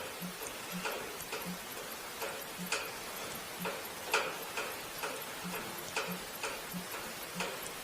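Rain dripping onto the roof: irregular sharp taps and ticks, a few each second, sounding like someone tap dancing on the roof.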